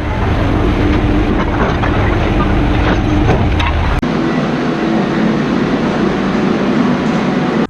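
Vehicle engine running steadily, with scattered knocks and rattles. About four seconds in the sound changes abruptly and loses its deep rumble, then it cuts off sharply at the end.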